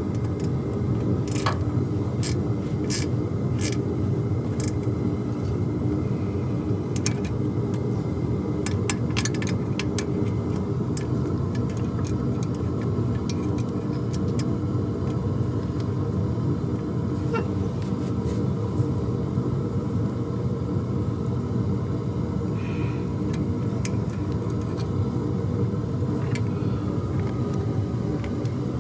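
A steady low rumble throughout, with scattered short clicks and taps of a small wrench on the turbo bolts, most of them in the first ten seconds or so.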